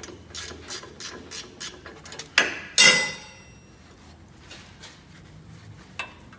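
Hand ratchet wrench clicking in steady strokes, about three clicks a second, as a bolt is backed out under a pickup. About two and a half seconds in come two loud metal clanks with a ringing tail, then a single click near the end.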